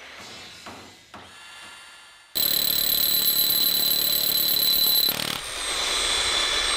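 A faint intro sound effect, then about two seconds in a Hitachi DH-52MEY brushless SDS Max rotary hammer starts suddenly, drilling into a concrete slab. It runs loud and steady with a high-pitched whine, dipping briefly about five seconds in.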